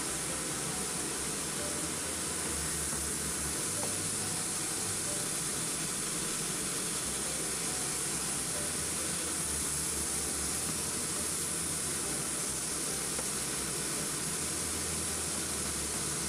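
Chicken breast pieces sizzling steadily in a hot pan while a wooden spoon stirs them.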